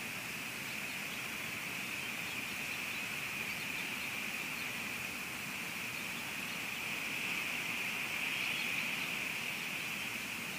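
Steady hiss of rain falling on and around the nest-cam microphone, even and unbroken.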